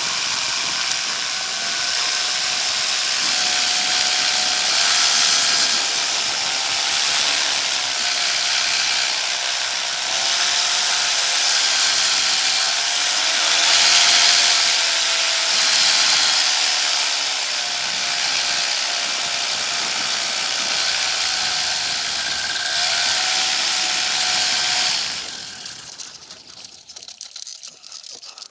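Paramotor engine and propeller running steadily over heavy wind noise, the engine pitch rising and falling a little with the throttle. It cuts off abruptly near the end, leaving faint scratching.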